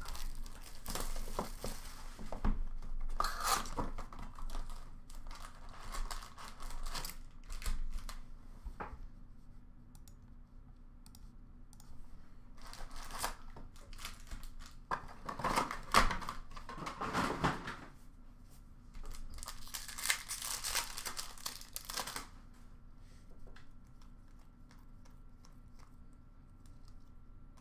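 Plastic shrink wrap torn and crumpled off a sealed trading-card box, then the cardboard box opened and card packs ripped open, in uneven bursts of crinkling and tearing. Near the end it drops to faint handling of the cards.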